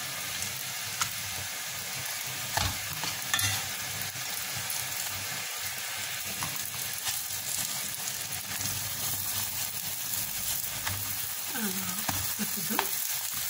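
Msemen flatbreads sizzling in oil in a cast-iron skillet: a steady frying hiss, with a few light knocks about one to three and a half seconds in.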